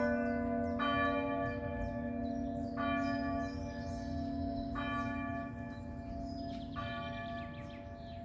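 Swinging bronze church bells cast by Causard of Tellin, ringing a partial peal: a stroke about every two seconds over a steady low hum. The strokes grow fainter as the peal dies down.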